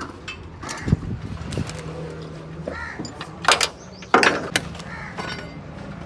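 Tools clanking and knocking during a car engine oil change: a string of sharp knocks, loudest about three and a half and four seconds in, over a low steady hum.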